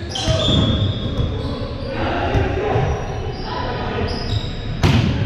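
Volleyball play in a large gymnasium: a ball is struck with a sharp smack about five seconds in, with other lighter hits and players' voices echoing around the hall.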